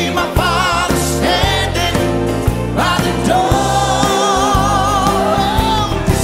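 Live gospel song: a church choir singing with a band's bass and drums. A lead voice holds a long note with vibrato through the second half.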